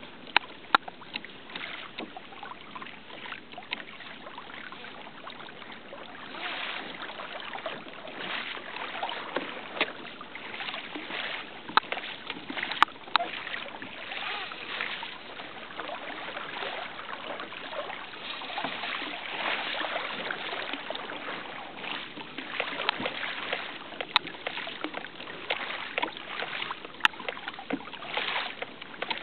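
Water sloshing and lapping against a kayak's hull, swelling and easing every few seconds, with scattered sharp clicks and knocks.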